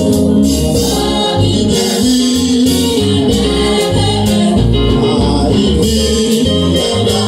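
Amplified gospel singing over loud band music, with a steady pulsing bass beat and shaken rattle percussion.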